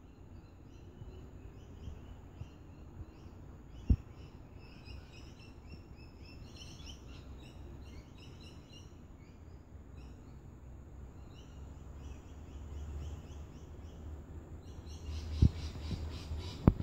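Birds chirping in short repeated calls over a low steady rumble, with a sharp knock about four seconds in and two louder knocks near the end.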